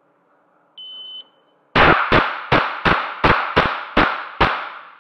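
Shot timer start beep, then a rapid string of eight shots from an AR-15-style .22 rimfire semi-automatic rifle, about three shots a second, each echoing in an indoor range.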